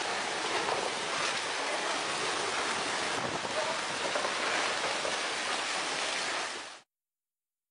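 Landslide of earth and rock sliding down a hillside: a steady rushing noise that cuts off suddenly near the end.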